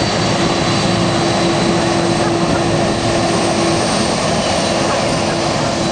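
Boeing 747 jet engines running at high power on the runway, as for takeoff: a steady, loud rush of noise with a steady hum and a high whine.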